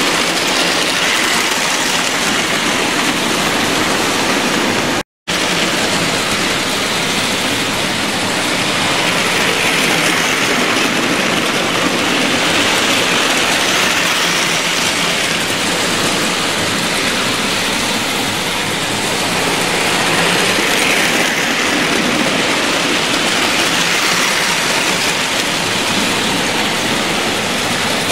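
Several model trains running on a layout: a steady, even rush of metal wheels on metal track, broken by a short total dropout about five seconds in.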